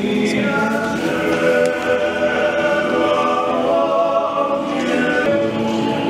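An a cappella vocal group singing in harmony, holding long chords, in a stone domed hall.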